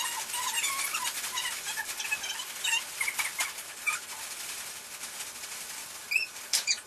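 Plastic bags of cereal snack mix being shaken hard: a dense crinkling rustle of the plastic with the cereal pieces rattling inside.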